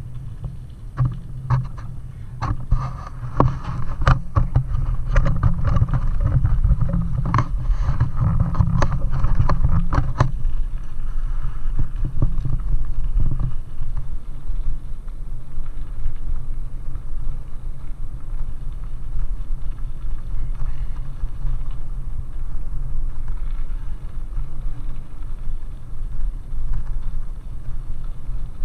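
Steady rumble of wind on the microphone and bike tyres rolling over a gravel track, with a run of sharp clicks and rattles during the first ten seconds or so.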